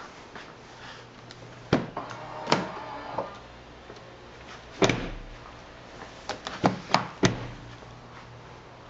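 Range Rover door and its electric power side step being worked: a series of sharp clicks and thunks, six or seven in all, the loudest about five seconds in.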